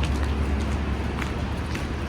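Footsteps crunching in fresh snow at a steady walking pace, about one step every half second or so, over a steady low rumble.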